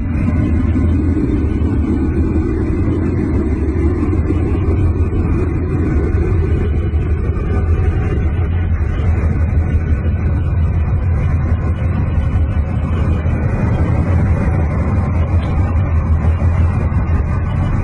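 Deep, steady rumbling drone in an electronic 'space' music piece, noisy rather than pitched, like an engine or rocket rumble.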